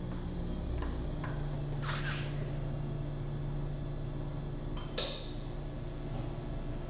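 Low steady hum with a few light button clicks, then one sharp click about five seconds in as a countertop ice maker is switched on.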